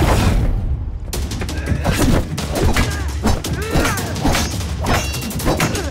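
Fight-scene sound mix: a rapid run of sharp weapon and body impact hits with fighters' grunts and shouts between them, over a steady low music score.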